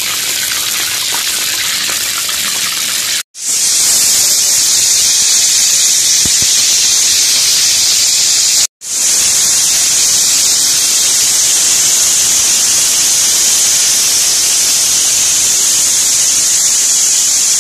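Raw chicken pieces sizzling in hot oil in a karahi: a loud, steady hiss, broken off abruptly twice, about three seconds in and near nine seconds.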